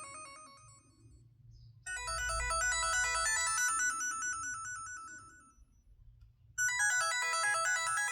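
LG MG180 mobile phone ringtone playing: a phrase of quick electronic melody notes that fades away, pauses about a second, and starts again, repeating on a loop.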